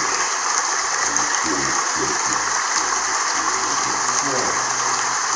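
Steady, dense applause from a crowd clapping, with faint voices underneath.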